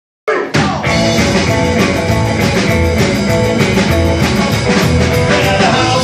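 A 1950s-style rockabilly trio of electric guitar, upright double bass and drum kit playing a song, starting abruptly just after the start with a couple of hard hits and then running at a steady driving beat.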